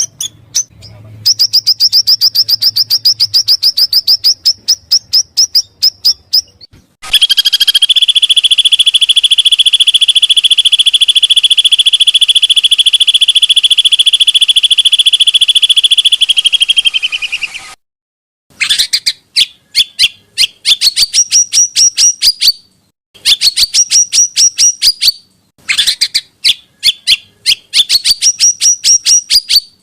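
Recorded small songbirds singing. First comes a fast, high trill of rapid repeated notes, then a long unbroken rolling trill lasting about ten seconds. After that come several short bursts of rapid chattering notes, each about two seconds long, with brief pauses between them.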